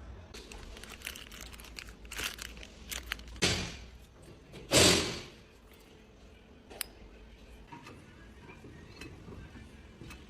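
Rustling and scattered knocks, with a short noisy burst about three and a half seconds in, one loud thud about five seconds in and a sharp click near seven seconds.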